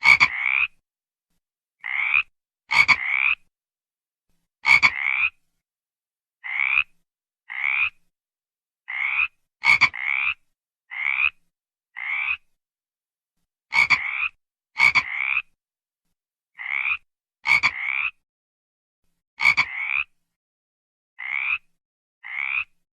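A frog calling in a series of short croaks, each slightly rising in pitch and some opened by a sharp click, repeating irregularly about once a second with silence between.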